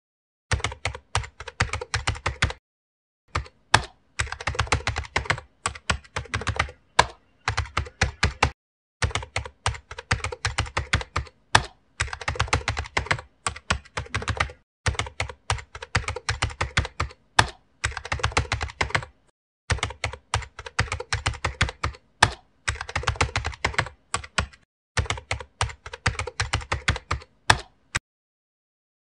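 Rapid keystrokes on a computer keyboard, typing in runs a few seconds long broken by short silent pauses.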